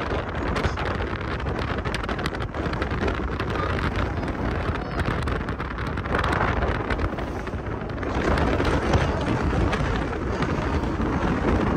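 Wind buffeting the microphone: a steady low rumble that swells slightly a couple of times.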